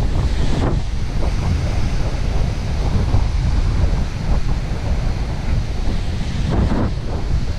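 Strong wind buffeting the microphone over waves breaking and washing up a pebble shore, a steady rumbling roar with two louder surges, about half a second in and near the end.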